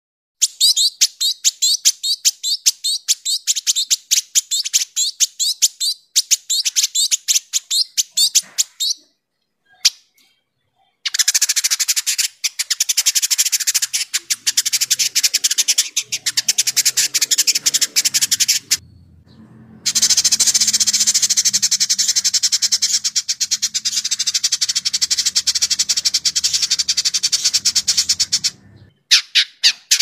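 Village indigobird singing a rapid, dense chattering song of high, sharp notes. It comes in three long runs with brief pauses between them. The first run is a quick string of separate notes and the later runs are almost continuous chatter.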